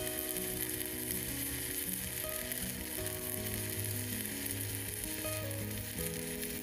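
Kachi MK-120A mini inverter stick welder striking an arc, the electrode crackling steadily as it burns. Rods are being run back to back without a break.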